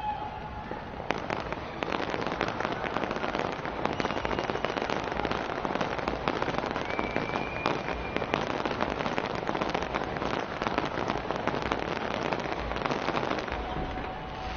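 Fireworks display crackling and banging in rapid, dense succession. The barrage starts about a second in and eases off near the end.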